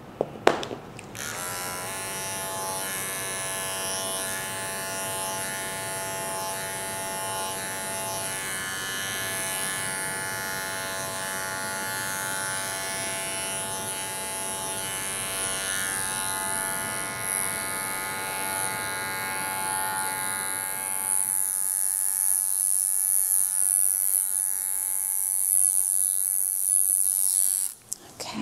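Electric dog grooming clippers clicked on and running with a steady buzz while trimming a puppy's coat. The buzz shifts and grows a little louder in the last several seconds, then cuts off suddenly just before the end as the clippers are switched off.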